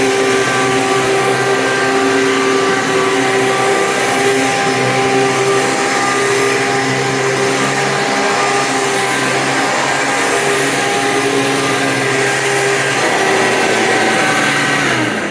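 A Hoover Sprint 12-amp upright vacuum cleaner running steadily, a motor whine over a rush of airflow, then switched off near the end, its motor winding down.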